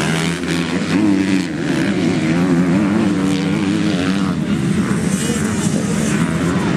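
Several MX2 motocross motorcycle engines running hard as riders race past close by, the pitch of each engine rising and falling as the throttle is opened and closed.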